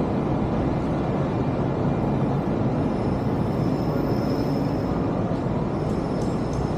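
Steady drone of city street traffic, heard from the pavement of a busy road.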